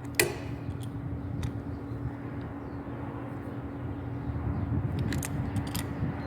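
A sharp click of hard plastic plumbing parts being handled just after the start, then a few lighter clicks and taps, over a steady low hum and rumble.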